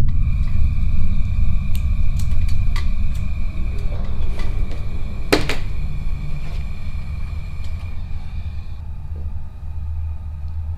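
Low rumbling drone with a steady high ringing tone over it that fades about nine seconds in, and scattered sharp clicks, the loudest about five seconds in.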